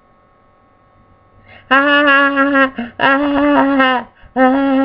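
Three held horn-like notes at the same pitch, each about a second long with short gaps between them, starting after a quiet opening.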